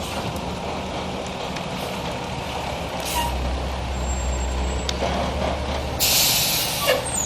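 Heavy truck engine running with a low rumble, most likely an arriving fire engine. Near the end its air brakes let out a loud hiss lasting about a second.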